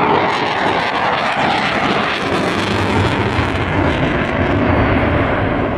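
Eurofighter Typhoon's twin EJ200 jet engines in a display pass, a continuous loud jet roar whose low rumble deepens and strengthens from about halfway through.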